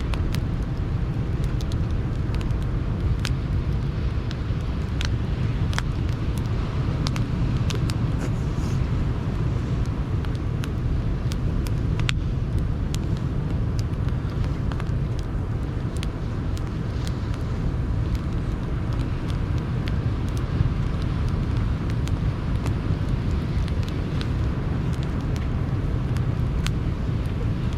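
Sea surf rushing steadily on the shore, mixed with a wood campfire crackling in sharp, irregular pops.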